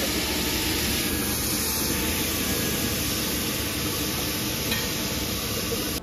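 Pav bhaji frying and being stirred in the pan: a steady sizzle with a few faint scrapes and clicks.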